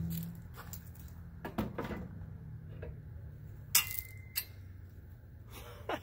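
Microwave oven door being unlatched and pulled open: a sharp click about two-thirds of the way in, with lighter clicks and rattles around it, over a low steady hum.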